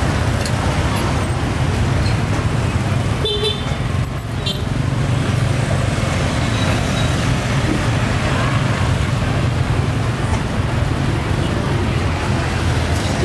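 Steady street traffic noise, the low hum of passing motorbikes and cars, with a brief high horn toot about three seconds in.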